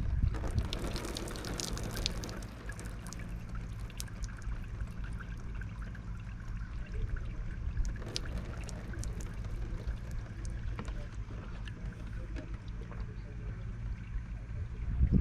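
Water splashing and trickling around a kayak as it is paddled, with many small scattered splashes and drips, busiest in the first couple of seconds, over a steady low rumble.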